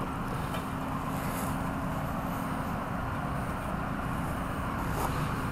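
Kawasaki engine of a Commuter three-wheeler running steadily at idle.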